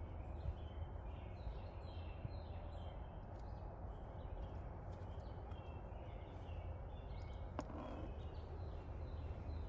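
Faint outdoor ambience of small birds chirping again and again over a low steady rumble, with one sharp click late on.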